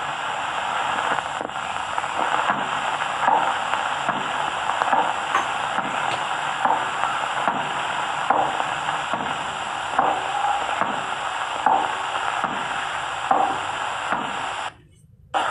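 Steady hiss from an old film soundtrack, with faint soft knocks repeating about once a second and a brief drop-out near the end.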